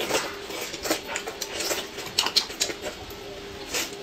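Close-up eating sounds: chewing and lip smacking, with chopsticks tapping against a plate in irregular clicks, over a faint steady hum.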